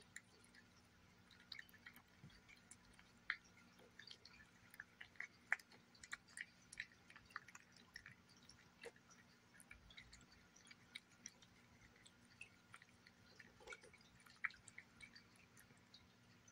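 A cat eating wet pâté cat food: soft, irregular wet smacking and licking clicks, a few per second, with a handful of louder smacks.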